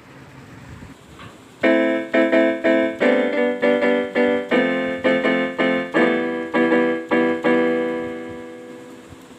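Casio SA-78 mini keyboard played by hand: a short run of single notes and chords starting about a second and a half in, the last one held and fading away.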